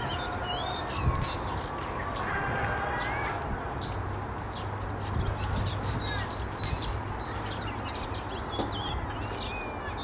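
Many short, high bird chirps and call notes from several songbirds, scattered through the whole stretch, over a steady low rumble.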